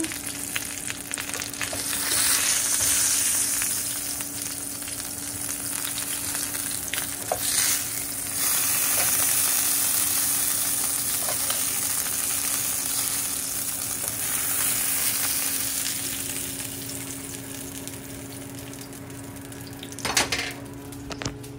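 Chicken pieces sizzling as they fry crispy in hot oil in a pan. The sizzle swells louder a couple of times, over a steady low hum, with a few sharp knocks near the end.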